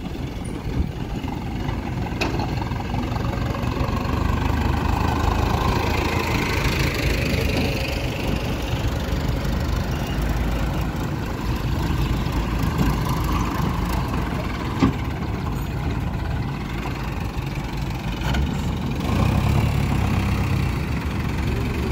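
Mahindra farm tractor's diesel engine running as it drives a loaded trolley across a dirt yard, with a couple of sharp knocks. Near the end the sound shifts to a deeper, steady engine hum.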